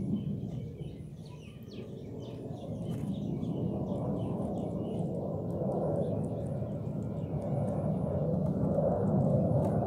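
Ducklings peeping faintly in short high chirps over a louder, steady low rumble of background noise that swells near the end.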